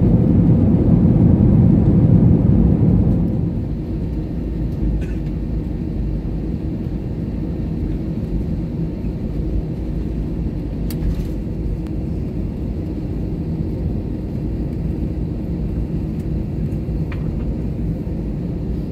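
Cabin noise of an Airbus A320-200 after touchdown: a loud low rumble of the landing rollout drops off about three seconds in, leaving a steadier, quieter engine hum as the plane taxis. A few faint clicks sound over it.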